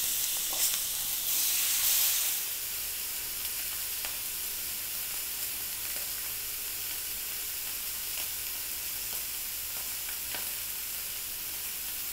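Two sirloin steaks sizzling steadily as they sear in a very hot ribbed griddle pan. The sizzle gets louder for a moment about two seconds in, as a steak is turned over with tongs.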